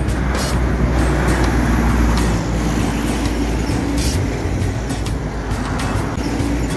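Heavy trucks driving past close by, including a flatbed semi-trailer: steady low diesel engine noise with road and traffic noise. Background music plays over it.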